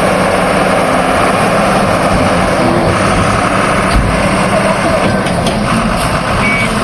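Diesel engine of heavy earth-moving machinery running steadily, with a dull thump about four seconds in.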